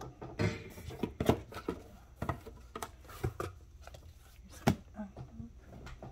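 Cardboard gift box and paper packaging being handled by hand: irregular soft taps, knocks and rustles, with one sharper knock about four and a half seconds in.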